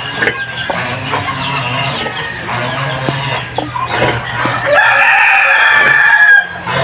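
Chickens clucking in the coop, with a long rooster crow near the end.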